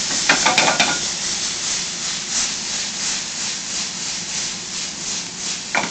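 Vegetables sizzling in a frying pan on a gas range, with a spatula stirring and scraping the pan in a regular run of about three strokes a second. A few sharp clinks about half a second in and a single knock of metal near the end.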